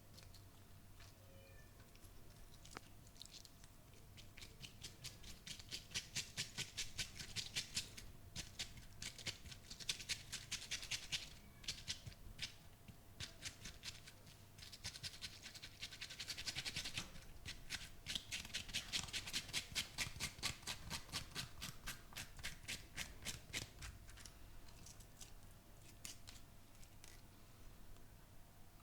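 A barber's hands working quickly on a person's head during a massage: several runs of fast, even, crisp taps or crackles, about five a second, each run lasting a few seconds.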